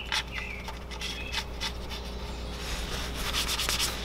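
Light metallic clicks and scraping as a new oil drain plug is threaded into the steel oil pan of a VW Beetle, with a quicker run of clicks about three seconds in, over a steady low hum.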